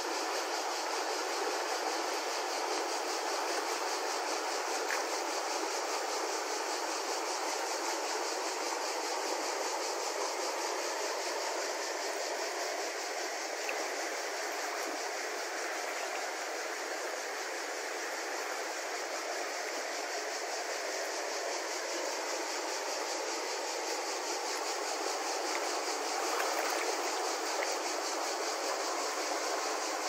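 Wide, fast-flowing river rushing steadily over a shallow riffle and around rocks, with white water breaking at the surface.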